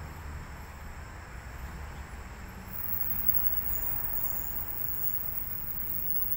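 Distant thunder from a thunderstorm, a steady low rumble with a faint hiss over it.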